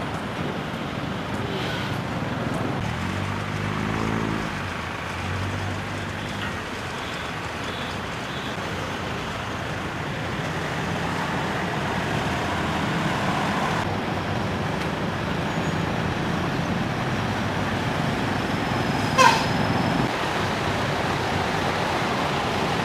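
Steady road traffic noise with vehicles passing. One engine note stands out briefly about three to four seconds in, and a short sharp squeak comes near the end.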